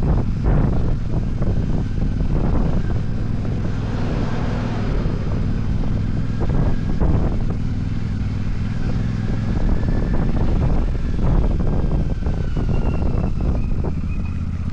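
Royal Enfield Super Meteor 650's parallel-twin engine running steadily while riding.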